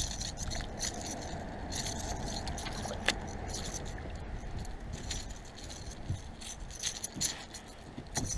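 Rattles inside a Cotton Cordell Super Spot lipless crankbait shaking in quick, irregular bursts as a hooked pickerel thrashes on the line.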